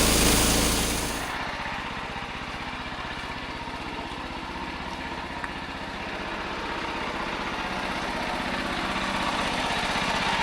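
Small generator engine running steadily. It is louder and hissier for the first second or so, then settles to a quieter, even hum.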